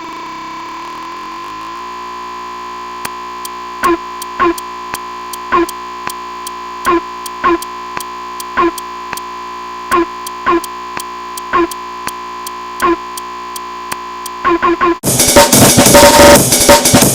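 Electronic music: a held synth drone under a steady pattern of short pitched hits, then a sudden burst into a loud, dense section with drums and synths about fifteen seconds in.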